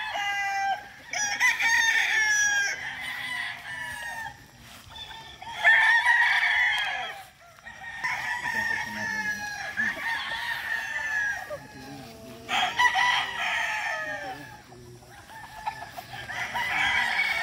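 Several gamefowl roosters crowing one after another, their crows overlapping and coming every few seconds with short lulls between them.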